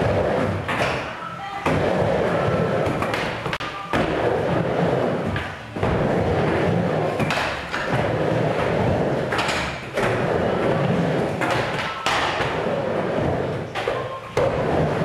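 Skateboard wheels rolling over hard ground, broken by sharp tail pops and the board slapping down on landings. The rolling changes abruptly every couple of seconds.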